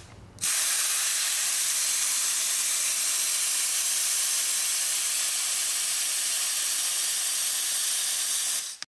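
Compressed air rushing out of a tire through an Apex RPV rapid air-down valve stem with its pull tab open, deflating it from about 70 toward 30 PSI: a steady, loud hiss that starts about half a second in and cuts off suddenly near the end.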